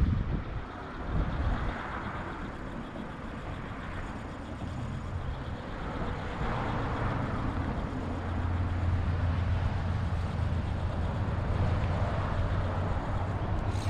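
Wind blowing across the microphone in gusting swells, with a low steady rumble that grows louder about halfway through.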